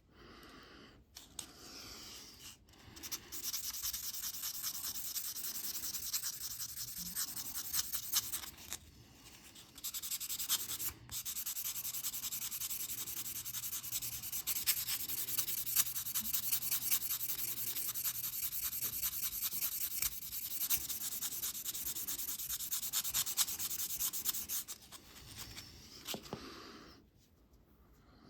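A metal watch case being sanded by hand with fine sandpaper: quick back-and-forth rubbing strokes that make a continuous hissy scratching. It breaks off briefly around ten seconds in and stops near the end.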